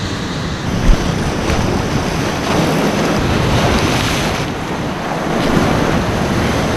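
Ocean surf breaking and washing over rocks, with wind buffeting the microphone. There is a single sharp knock about a second in.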